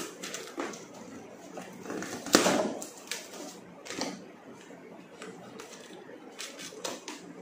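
Scissors cutting through packing tape on a corrugated cardboard box, with scattered clicks and rustles from the blades, tape and box flaps. The loudest is a short, noisy burst a little over two seconds in.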